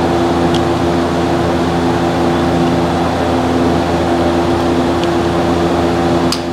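Steady mechanical drone with several held tones, as from a running motor or fan. Faint clicks sound over it, with a sharper plastic click near the end as the halves of the key fob case are pressed together.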